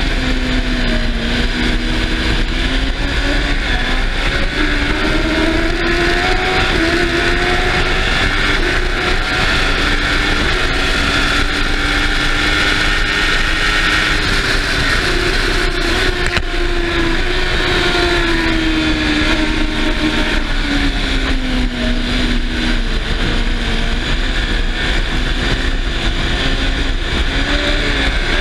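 Racing sidecar outfit's engine at full race speed, heard onboard, its pitch climbing and dropping again and again through gear changes, braking and corners. Heavy wind rush on the microphone runs under it.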